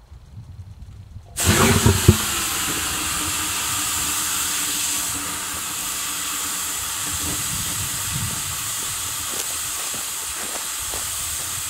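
A steady, loud hiss of gas blowing out under pressure at the pulsejet test rig. It starts suddenly about a second and a half in with a few low thuds.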